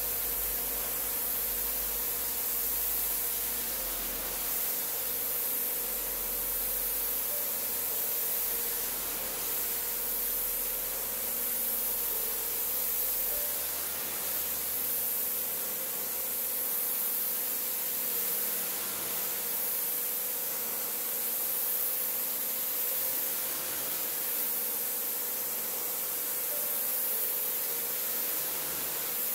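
Pressure washer wand spraying a high-pressure water jet onto a soapy, wet rug: a steady hiss, with a faint steady hum underneath.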